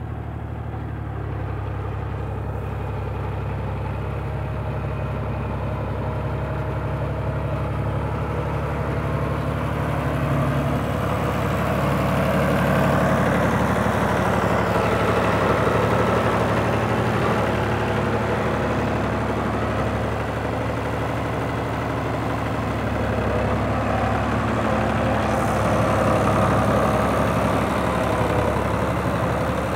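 Al-Ghazi tractor's diesel engine running steadily under load while working the soil, getting somewhat louder from about ten seconds in.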